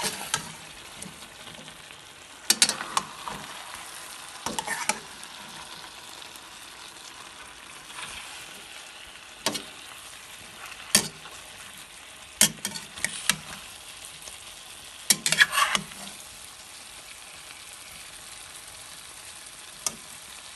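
Chicken, potatoes, carrots and bell pepper sizzling in a stainless steel pot with a steady hiss, while they are stirred. A utensil scrapes and clanks against the pot in scattered bursts every few seconds.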